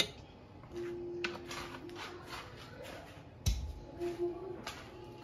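Metal spoon clinking and scraping against a nonstick cooking pot holding a thick yogurt-and-spice marinade, with a dull thump about three and a half seconds in.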